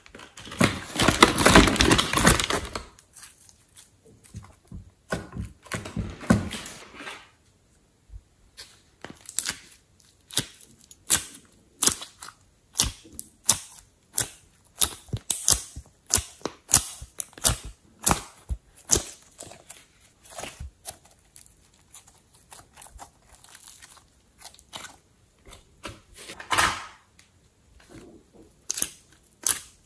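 Slime being scooped and squeezed by hand: a dense sticky crackling for the first few seconds, then a long run of sharp, separate clicks and pops as the slime is pressed and pulled.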